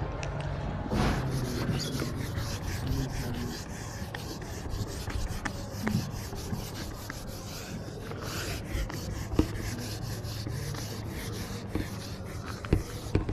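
Handheld eraser scrubbing marker off a whiteboard in rapid back-and-forth strokes, with a few light knocks of the eraser against the board.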